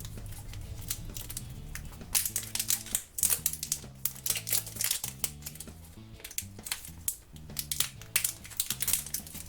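Background music with a slow, stepping melody, under crinkling and clicking of plastic packaging being handled and torn open.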